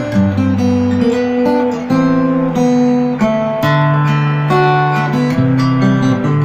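Acoustic guitar played fingerstyle, with bass notes held under a melody of plucked notes. It is a sound test of new D'Addario EZ910 light-gauge (11–52) bronze strings.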